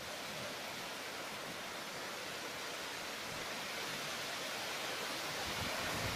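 Monsoon rain falling on dense garden foliage, a steady even hiss that gradually grows heavier.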